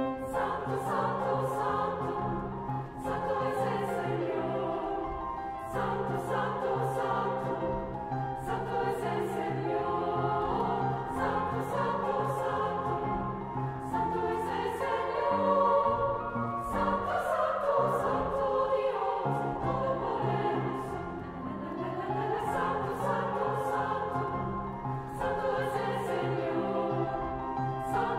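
Girls' choir singing with upright piano accompaniment.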